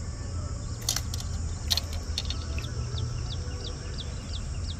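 A bird chirping a run of short falling notes, about three a second, from about two seconds in, over a steady insect-like hiss and low rumble. Two sharp knocks come before it, about one and nearly two seconds in.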